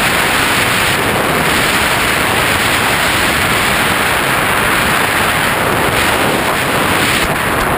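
Airflow rushing over the microphone of a GoPro mounted on a Bixler foam RC plane in low, fast flight: a loud, steady rushing noise.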